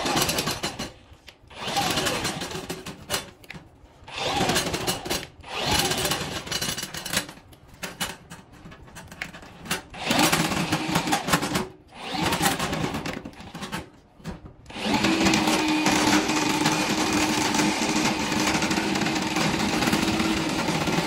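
Milwaukee M18 FUEL cordless drain snake running, spinning its cable down a bathtub drain. It starts and stops in short bursts several times, then runs steadily for the last several seconds.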